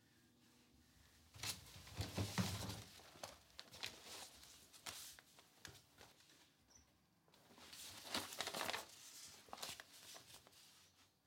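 Soft rustling and shuffling of a person moving about a room, fabric brushing with small clicks and a low thud, in two spells, one near the start and one later on.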